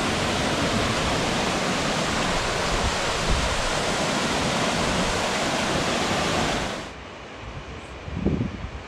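Water pouring down a roadside rock cliff and splashing onto the wet road, a steady loud rushing. It cuts off sharply about seven seconds in, leaving softer gusts of wind on the microphone.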